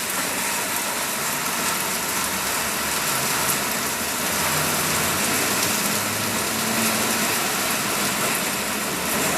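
Steady mechanical running noise, an even hiss with a low engine-like hum underneath.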